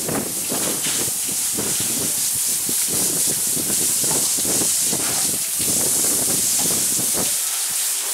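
Hose spraying water over a horse being washed down: a steady hiss of spray with uneven splashing.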